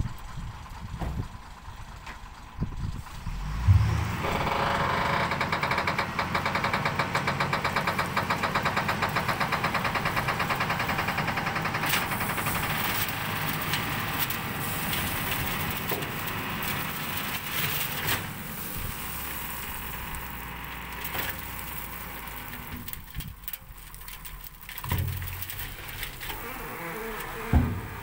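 Tipper truck's diesel engine revving up about four seconds in and held at high revs while the hydraulic hoist raises the body and the load of soil slides out of the back; the engine eases off near the end, with a couple of short thumps.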